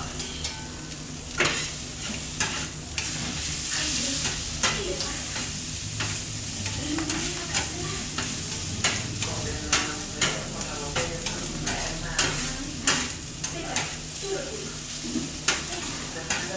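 Peppers, onions and ground meat sizzling on a flat-top griddle while a knife and a metal spatula chop and turn them, striking the steel plate in sharp irregular clacks about once or twice a second.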